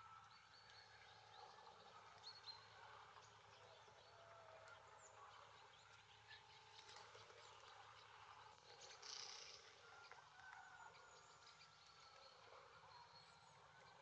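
Faint outdoor ambience of small birds chirping and calling intermittently, with a few soft ticks and a brief brighter call about two-thirds of the way in.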